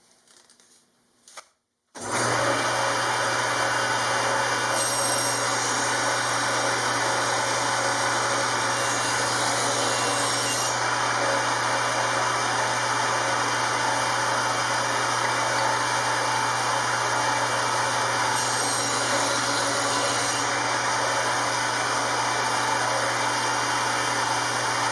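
A power woodworking tool starts about two seconds in and runs steadily with a low hum while cutting a groove in wood for a tongue-and-groove joint. Its pitch shifts briefly a few times as the cut goes on.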